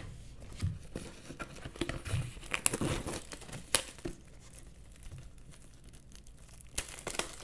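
Plastic shrink wrap being torn and peeled off a cardboard trading-card collection box, crinkling with scattered sharp crackles.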